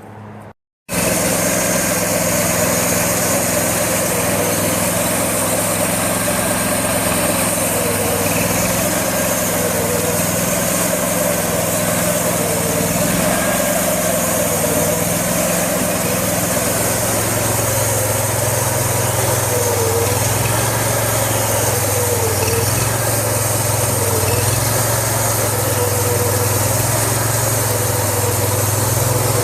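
Engine of a manual bandsaw mill running steadily at high speed while the band blade saws through a large beech log; the sound starts abruptly about a second in, and the engine note drops a little about halfway through.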